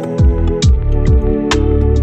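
Background music with a steady beat: deep bass hits that drop in pitch, and a sharp hit about one and a half seconds in, over held notes.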